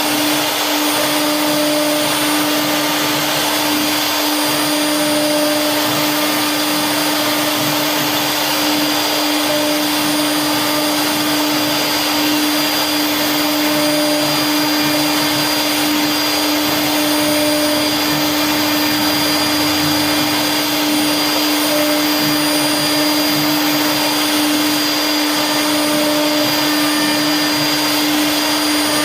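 CNC router spindle running steadily while carving a design into a wooden bed panel: a constant high motor tone over a dense cutting hiss, with no change in pitch or level.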